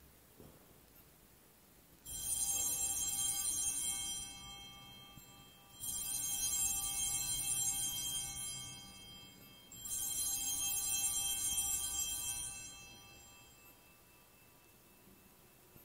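Altar bells (Sanctus bells) rung three times at the elevation during the consecration, each ring a cluster of high bell tones that fades away over two to three seconds.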